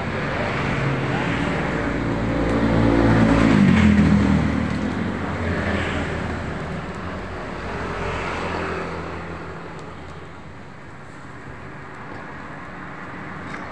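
Road traffic: a motor vehicle passes close by, its engine loudest about four seconds in and dropping in pitch as it goes. A second, fainter vehicle passes a few seconds later.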